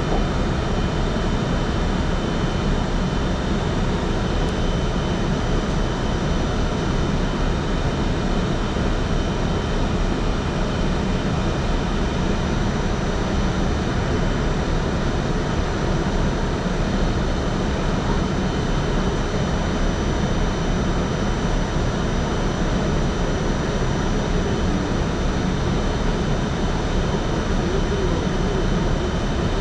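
Staten Island Railway train running steadily between stations, a continuous rumble of wheels and running gear with faint steady high tones above it, as heard on board.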